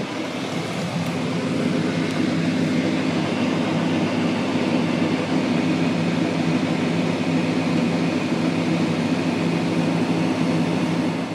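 Farm machinery running steadily: a constant mechanical drone with a low, even hum, fading out near the end.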